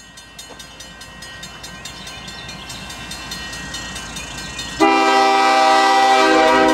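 Grade-crossing bell ringing in quick, even strokes while an approaching GE ES40DC diesel locomotive's rumble slowly grows louder. About five seconds in, the locomotive's multi-note air horn sounds a loud sustained chord that drowns out the rest.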